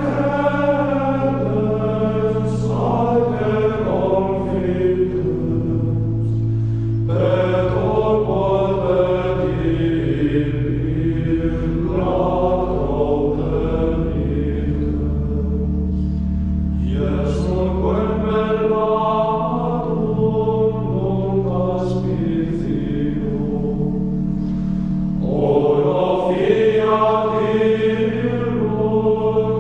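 Choir chanting religious music in long sustained phrases, with brief breaks between phrases and long-held low notes underneath.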